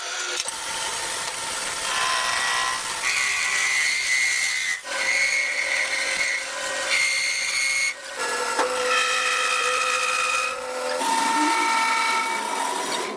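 Power tool working metal with a high-pitched whistling squeal over a noisy rush. The tone shifts pitch in segments and breaks off sharply about five and eight seconds in.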